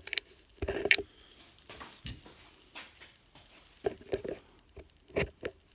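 Irregular metal clinks and scrapes from fitting a slide hammer's square attachment and its nut onto a CV axle's outer joint, the loudest clatter about a second in.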